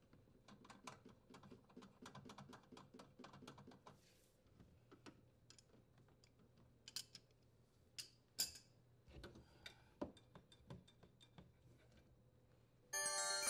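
Faint, quick clicks and ticks of metal as the dishwasher's leveling legs are turned to lower it. They run close together for the first few seconds, then come singly and sparsely.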